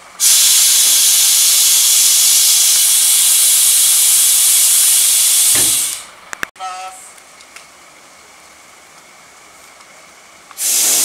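Loud hiss of compressed air from the Ki 100 Russell snowplow car's pneumatic wing gear as the side wing is worked, running steadily for about six seconds and then cutting off. A second blast of hissing air starts near the end.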